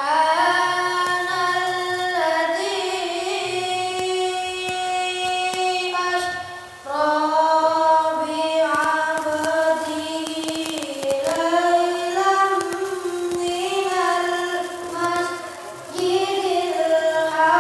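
A boy's voice reciting the Quran in the melodic qori style: long held notes with ornamented turns, broken by a breath about seven seconds in and again near the end.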